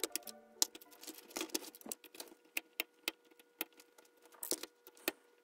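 Irregular sharp clicks and taps of a screwdriver and hard plastic parts being handled as a Robosapien toy robot's frame is taken apart.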